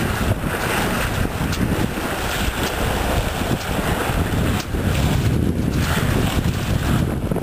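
Wind buffeting the microphone over the rush of water along the hull of a Grampian 30 sailboat under sail, a steady, uneven rumble and hiss.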